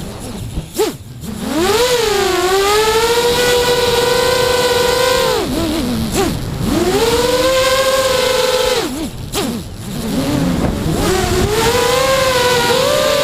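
FPV quadcopter's motors and propellers whining, the pitch swinging with throttle. It drops sharply and climbs back near the start and again about nine seconds in, with a shorter dip in between.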